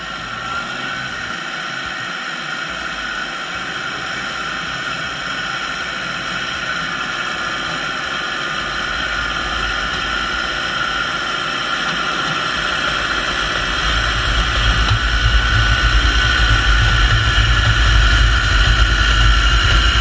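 Eastwind mini crawler dozer running and pushing soil, its engine carrying a steady high whine. A deep rumble of engine and tracks swells over the last several seconds as the machine comes right up to the microphone.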